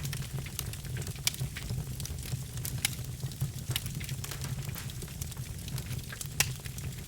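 Birch logs burning in a fireplace: a steady low fire rumble with frequent sharp crackles and pops, a few louder snaps among them.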